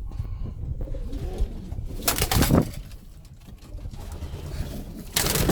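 Domestic pigeons cooing in a loft, with two brief loud rustling sounds, one about two seconds in and one near the end.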